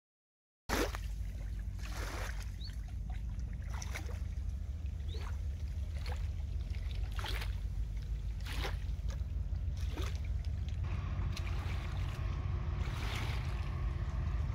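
Wind buffeting the microphone with a heavy low rumble, cutting in abruptly under a second in, with small waves slapping at the riverbank edge about once a second. From about eleven seconds in a faint steady hum joins.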